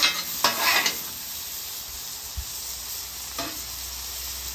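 Burger patties and onions sizzling steadily on a hot steel flat-top griddle. A metal spatula scrapes across the griddle several times in the first second and once more later on.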